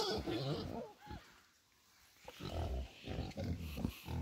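Pigs grunting: a run of short, low grunts starting about two seconds in, after a brief quiet gap.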